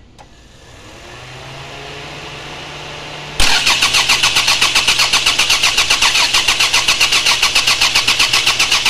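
Toyota RAV4's starter motor cranking the engine, beginning suddenly about three seconds in: a loud, even, rhythmic churning of about ten beats a second for some six seconds. Fed through a newly fitted starter relay, the starter now turns the engine over instead of only clicking, but the engine does not catch.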